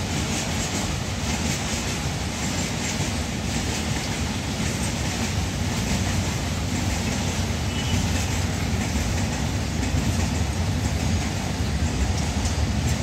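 Freight train wagons rolling past at speed: a steady rumble of steel wheels on the rails.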